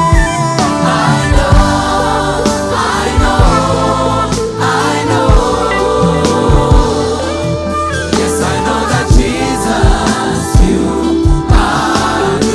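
A live gospel worship song sung by a group of singers with a band, with bass and a regular drum beat under the voices.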